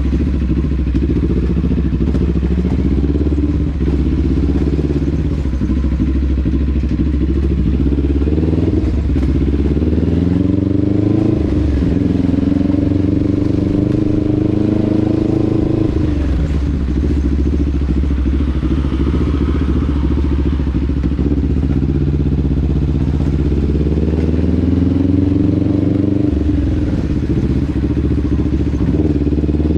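Vehicle engine running while under way. Its pitch climbs as it speeds up from about nine seconds in, drops back near the middle, and climbs again in the last third.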